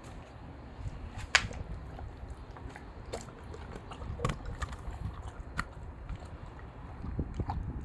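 A German shepherd chewing and crunching food, with irregular clicks and crunches and one sharp, loud click about a second and a half in.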